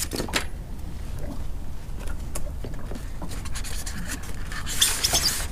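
Scattered light clicks and knocks, like gear being handled, over a steady low rumble, with a louder rustling scrape near the end.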